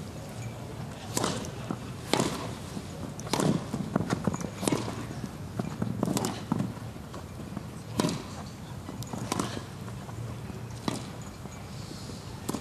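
Tennis rally on a grass court: the ball struck by the rackets with a sharp pop about every one to two seconds, over a steady stadium background.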